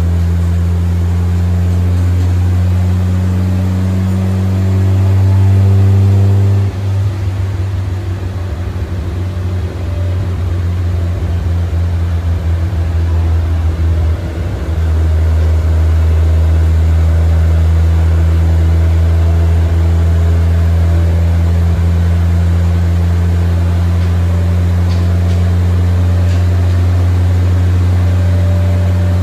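Rotary engine running on a dyno, a loud steady drone that swells a little about five seconds in, then turns choppy and uneven for about eight seconds before settling back into a steady drone.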